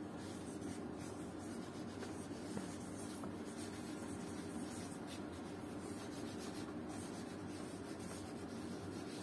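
Marker pen writing on a writing board: faint, irregular strokes over a steady background hum.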